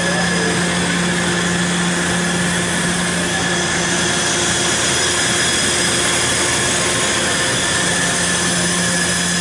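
Royal Master TG-12x4 centerless grinder running: a loud, steady machine hum and hiss with several steady tones underneath, no separate clicks or knocks.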